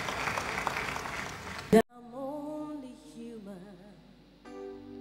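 A large congregation clapping, cut off abruptly by a loud pop just under two seconds in; then a woman sings a slow solo gospel line with wide vibrato, joined near the end by sustained accompaniment chords.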